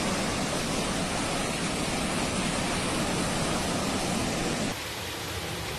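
Steady rushing noise that turns a little quieter and duller a little under five seconds in.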